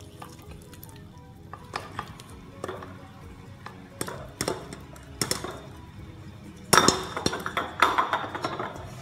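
Boiled potato, carrot and bean pieces tipped from a metal pot into a plastic colander: scattered knocks and clinks of the pot and tumbling vegetables, loudest in a cluster about seven to eight seconds in. Background music plays throughout.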